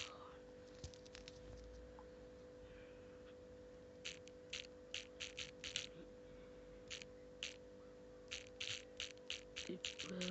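Typing a chat message: quick runs of light key clicks with short pauses between runs, over a steady electrical hum.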